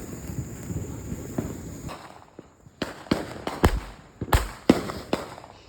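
Consumer fireworks going off: after a couple of seconds of rough background noise, a rapid irregular string of about eight sharp bangs, the loudest with a deep thump.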